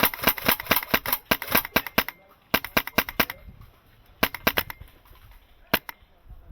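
Airsoft guns firing in rapid strings of sharp cracks: a long string over the first two seconds, two shorter bursts about two and a half and four seconds in, and a pair of shots near the end.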